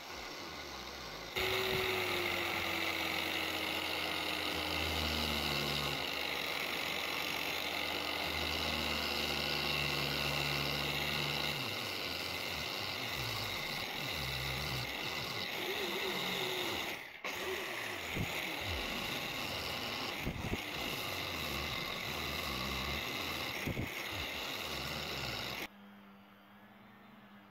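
Handheld angle grinder running with its disc worked along a thin steel sword blade: a steady, loud grinding whine that starts about a second in, with a brief dropout about two thirds through. Near the end it gives way to a much quieter steady hum.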